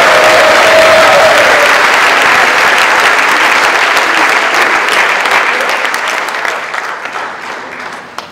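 Audience applauding: a long round of clapping that thins to a few scattered claps and dies away near the end.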